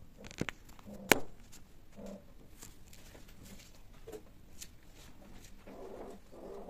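Two long-haired cats mating on a tiled floor: soft scuffling and small clicks of bodies and claws on tile, with a sharp knock about a second in. Low drawn-out calls follow about two seconds in and again near the end.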